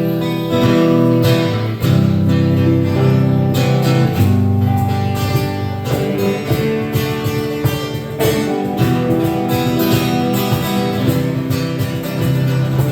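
A live band plays the instrumental intro of a country song, led by strummed guitar over a steady bass.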